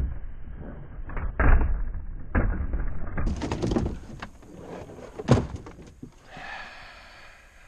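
Irregular knocks and thumps against the metal hull of a small fishing boat as someone scrambles at the side, the loudest about a second and a half in and a sharp knock about five seconds in.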